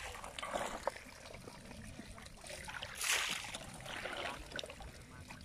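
Water splashing and trickling as a steel bowl is dipped and scooped through a basket of small fish and water, with a louder splash about three seconds in and small knocks in between.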